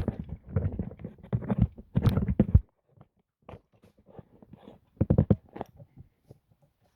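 Irregular metallic knocking, clatter and thuds of a fan and its bolts being handled and fitted to a tractor's fan shroud. The heavier thumps come in the first two and a half seconds, then lighter clicks and a short run of knocks about five seconds in.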